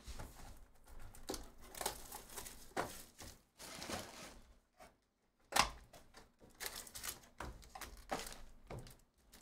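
Cardboard trading-card hobby box being handled and opened and its pack slid out, with irregular rustling and crinkling of packaging and light knocks on the table mat; the loudest is a sharp knock about five and a half seconds in.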